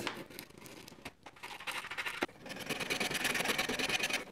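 Hand sanding on the dropout slots of a bicycle front fork, rubbing the paint off so the hub motor's axle will fit. The rubbing is faint at first and turns into rapid, steady back-and-forth scraping strokes from about halfway through.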